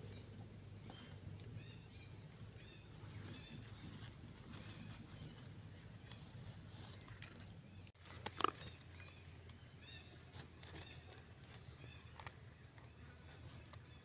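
Faint outdoor ambience: a low steady hum with small, short chirps repeating throughout, and one brief sharp sound about eight and a half seconds in.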